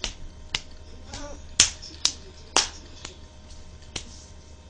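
A series of about nine sharp clicks or snaps, unevenly spaced at roughly two a second, the loudest in the middle.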